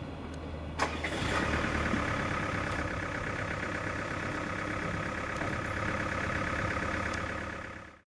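Modernized DR1A(M) diesel train (MTU 8V396 diesel engine, Voith hydraulic transmission) pulling away, with a low engine hum and a steady whining hum above it that resembles electric traction motors. A sharp knock comes about a second in, and the sound fades out near the end.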